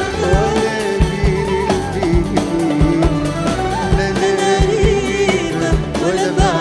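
Live Egyptian pop music from a band and orchestra: a steady drum beat under a wavering melody line.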